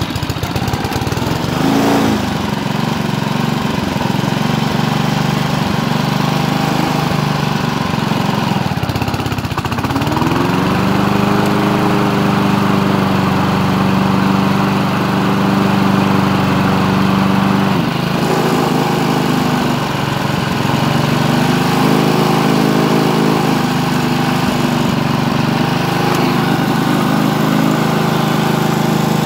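Honda HR215 lawn mower's single-cylinder four-stroke engine running steadily, freshly pull-started. Its pitch dips and climbs again about ten seconds in, then holds steady, and it shifts again a little past halfway.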